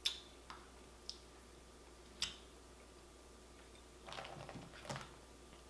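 Boiled blue crab shells clicking and cracking under the fingers: a few sharp isolated snaps, then a short run of crackling and rattling as a hand digs into the pile of crabs about four seconds in.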